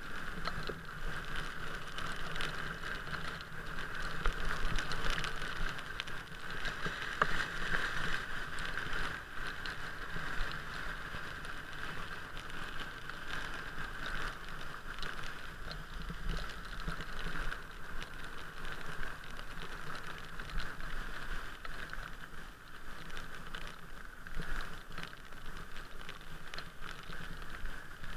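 Steady noise of riding along a rain-wet street: tyres hissing on wet asphalt and rain hitting the camera housing, with scattered small ticks.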